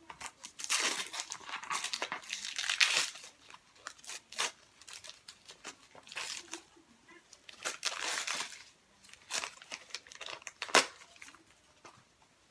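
Gift packaging being torn open and crinkled by hand, in irregular bursts of rustling and ripping, with a sharp snap near the end.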